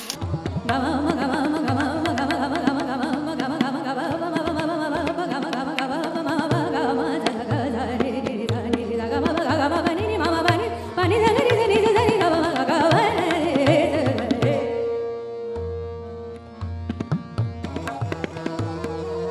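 Background music: a song with a singing voice over steady drum beats. The voice drops out about 14 seconds in, leaving the instruments and drums.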